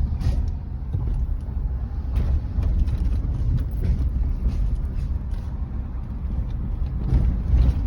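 Car cabin noise while driving: a steady low road and engine rumble with scattered small knocks and creaks from the interior.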